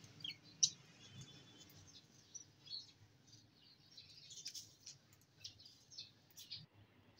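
Budgerigars chirping in an aviary: many short, high chirps in quick succession, the loudest one about half a second in.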